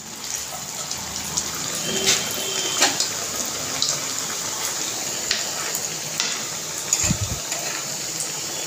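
Bread-and-peanut snack deep-frying in hot oil in a steel kadhai: a steady sizzle with scattered crackles as it fries toward golden.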